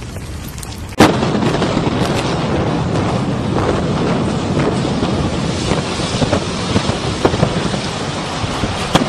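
Building demolition by implosion: a sudden loud bang about a second in, then a sustained rumble of the collapsing structure with scattered sharp cracks through it.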